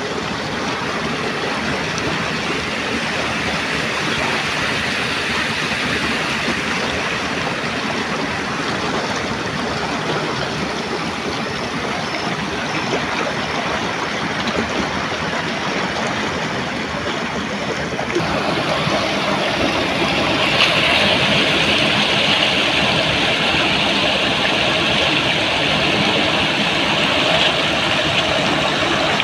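Muddy floodwater rushing steadily through a gap in a field channel's bank, a continuous gushing. About two-thirds of the way through the rush becomes brighter and a little louder.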